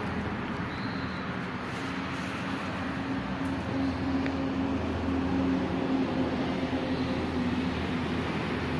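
A steady engine hum over a background of noise, growing a little louder through the middle and easing near the end.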